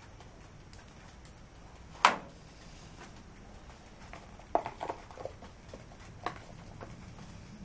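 One sharp knock about two seconds in, then a run of light taps and rattles as a cardboard box of baking soda is shaken and tapped over a super-glued plastic joint to build up a hard filler.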